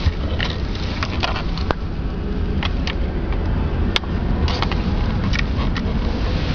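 Handling noise: scattered clicks and rustles as a hand fumbles with a small plug-in electronic module and its wires, over a steady low rumble. One sharp click about four seconds in.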